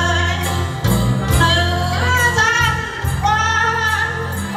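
Women singing a Vietnamese song and dance number, with long held notes, over an accompaniment with a strong, steady bass.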